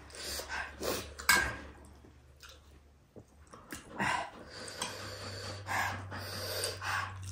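A person eating close to the microphone: irregular short bursts of chewing and breathing over a low steady hum.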